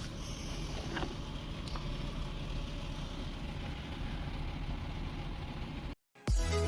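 Lexus RX300's 3.0-litre V6 engine idling steadily, with a couple of faint clicks about a second in. Its bank 1 upstream oxygen sensor is plugged back in, and the engine runs smoothly. Near the end the sound cuts off and electronic music begins.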